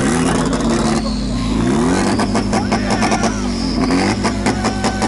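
Car engine revving up and down several times. From about two seconds in, a quick run of sharp cracks comes in over it.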